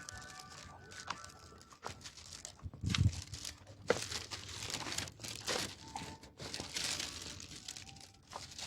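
Irregular close rustling and crinkling, with a few sharp clicks and one heavier low thump about three seconds in.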